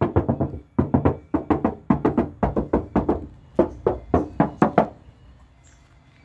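Knuckles knocking rapidly on the sheet-metal side panels of a Toyota Kijang LGX, a quick run of ringing knocks about four or five a second. The knocks stop about five seconds in.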